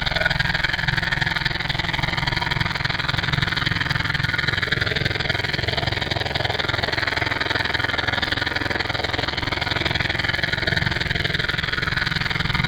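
A steady engine-like running sound with fast, even pulsing in the low end, unchanging in pitch and level.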